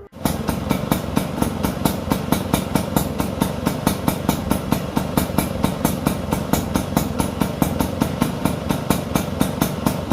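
Vespa PX scooter's single-cylinder two-stroke engine idling, with an even beat about four or five times a second.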